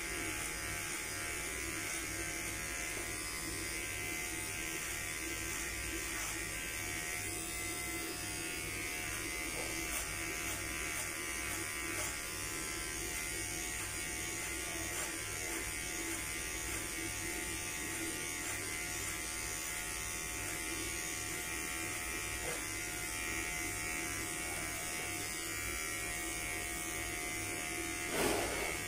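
Electric hair clipper buzzing steadily as it is run through hair on the side of the head. A brief knock near the end.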